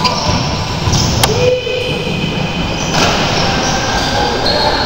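Sneakers squeaking again and again on an indoor court floor during play, in short high squeals over the noise of the hall, with a sharp ball bounce about a second in.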